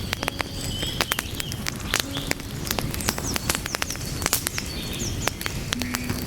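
Wood fire crackling, with frequent irregular sharp pops over a steady low rumble of burning logs.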